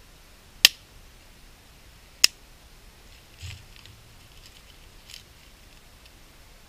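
Two sharp snaps, about a second and a half apart, as small dry pieces are broken by hand, then a few soft crinkles of birch bark being pushed into the split top of a dead-wood stick.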